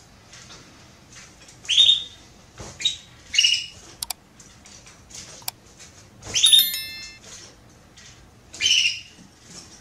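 Female Belgian canary calling in short, high, chirping calls, a few seconds apart, the call she gives when asking to mate. Two sharp clicks fall around the middle.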